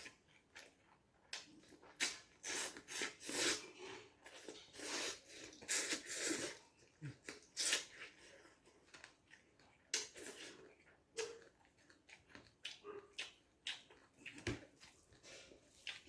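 Irregular kitchen handling noises during food preparation: short clicks and knocks with brief scraping or rustling bursts, busiest in the first half.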